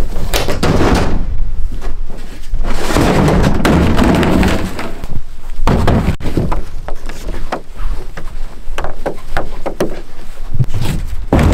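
Hollow plastic Sun Dolphin Aruba 10 kayak being pulled out of a corrugated-metal shed, its hull scraping and knocking against the shed and the gear inside. Then come a run of sharp knocks and clicks as it is handled and carried out.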